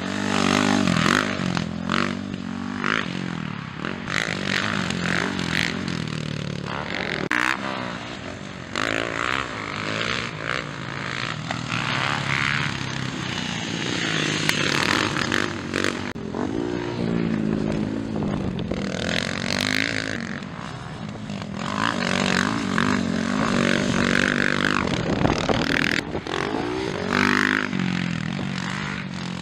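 Motocross bikes racing on a dirt track, their single-cylinder four-stroke engines revving up and dropping back again and again as riders accelerate through corners and shift gears, one bike after another passing.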